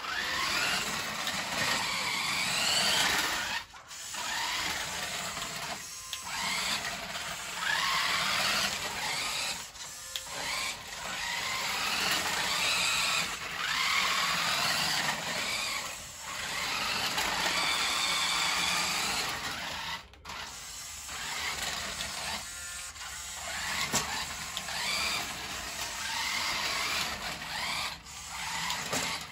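Revell Control Shark Next Level RC monster truck's small electric drive motor and gearbox whining in repeated bursts, each rising in pitch and then cutting off. The throttle works only full on or off.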